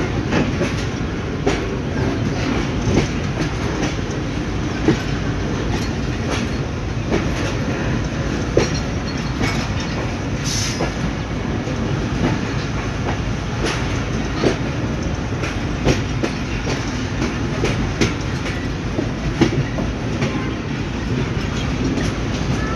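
Passenger train running along the track, heard from inside the coach: a steady low rumble of wheels on rail with irregular clicks and knocks. A short high hiss comes about ten seconds in.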